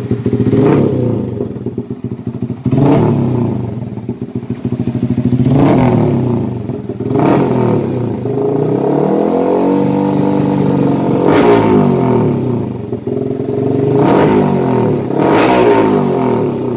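Yamaha R15 V3's 155 cc single-cylinder engine running through an SC-branded full-system racing exhaust, revved repeatedly in short throttle blips, with one slower rise and fall in revs about halfway through.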